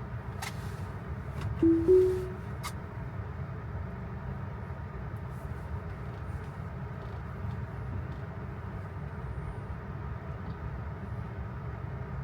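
Tesla's two-note rising chime about two seconds in, as Full Self-Driving is engaged again, with a few sharp clicks around it. Under it runs steady low road rumble inside the car's cabin.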